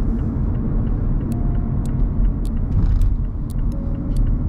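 Steady road and engine rumble of a moving car, heard from inside the cabin. From about a second in, light clicks come at about two a second.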